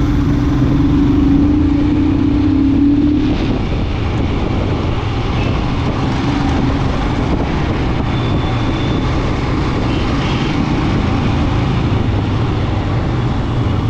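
Royal Enfield Scram 411's single-cylinder engine running at road speed, under a steady rush of wind noise from riding. A steady mid-pitched tone sounds over it for about the first three seconds, then stops.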